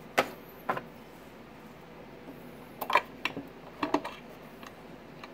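Scattered clicks and light knocks, a close pair about three seconds in and another about four seconds in: the 50 watt plug-in element of an in-line RF watt meter being pulled out and a 100 watt element fitted in its place.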